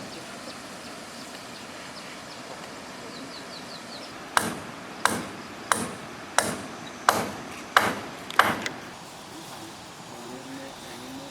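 Hammer driving a nail into timber: seven evenly spaced blows, about 0.7 s apart, starting about four seconds in, each with a short metallic ring.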